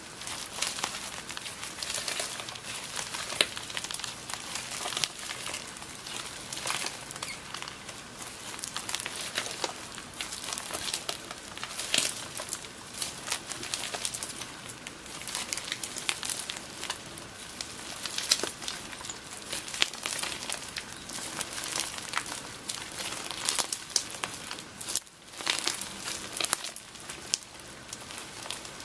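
Homemade slime loaded with add-ins being squished and stretched by hand, giving a steady run of small crackles and pops.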